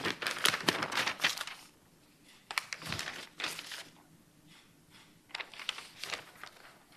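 Sheets of paper rustling and crinkling close to a desk microphone as they are lifted and turned over, in three short bouts with pauses between.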